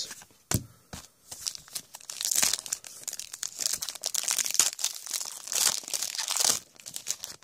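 Foil wrapper of a Panini Prestige football card pack crinkling and being torn open by hand: a few light clicks at first, then a dense crackle from about a second and a half in that dies away near the end.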